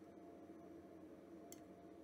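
Near silence: room tone with a faint steady hum and one faint click near the end.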